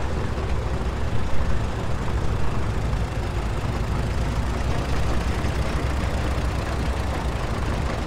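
Engine of a small vintage Farmall tractor running at low speed as it drives close past.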